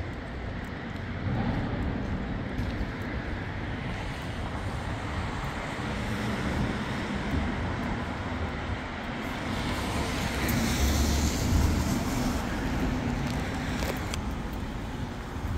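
Road traffic: cars driving by on a city street, with one vehicle passing close and louder about ten seconds in.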